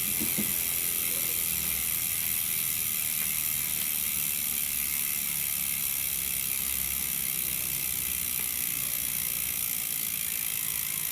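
Sagmit M120 bicycle rear hub freewheeling, its six pawls on the ratchet ring giving a steady, even high-pitched buzz of clicks too fast to count apart.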